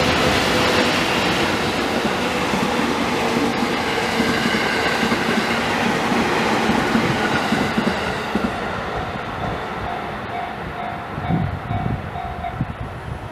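Locomotive-hauled delivery train of 205-series electric cars passing over a level crossing: the wheels and cars run past loudly for about eight seconds, then fade as the train moves away. Near the end, the crossing's warning bell can be heard ringing in a quick, even beat.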